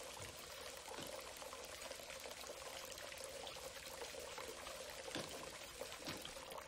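Water pouring and trickling steadily from a bathtub left running, with a few soft taps.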